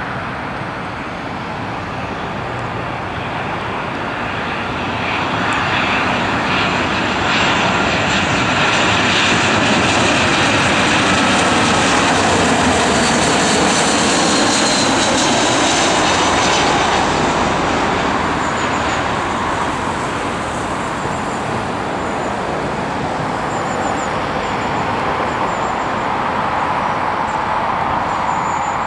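Airbus A320 jet airliner on final approach, its engine noise swelling as it passes close overhead, peaking about halfway through, then easing off as it flies on to the runway. A faint whine drops in pitch as it goes by.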